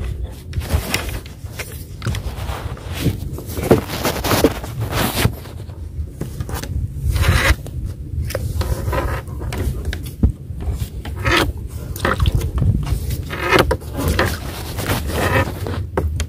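Irregular scraping and rubbing close to the microphone as a hand and rope work against the side of a wooden boat, over a steady low rumble.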